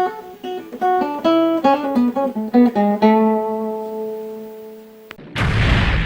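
A short melody of quickly plucked guitar notes ending on a held chord that slowly fades. About five seconds in, a sudden loud noisy blast like an explosion cuts in.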